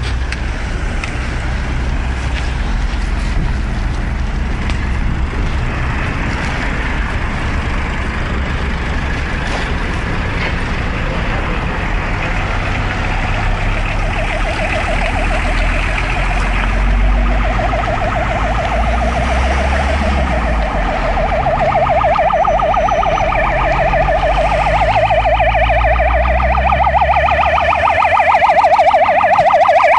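Road traffic and wind rumble, then from about halfway a Scania P400 fire engine's siren coming closer: a fast warble that grows steadily louder.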